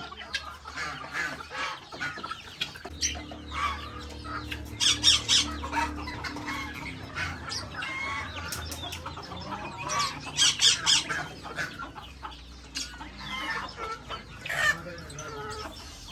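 Chickens clucking and calling in bursts every few seconds, over a steady low hum.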